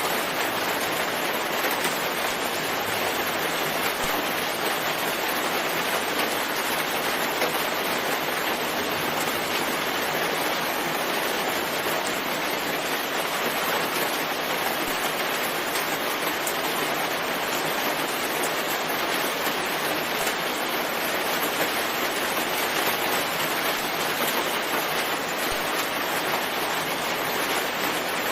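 Steady, even rain falling on a forest.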